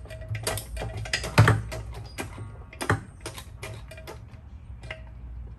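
Metal clicks and clinks of parts and tools on a T56 six-speed manual transmission being taken apart by hand, with one louder knock about one and a half seconds in.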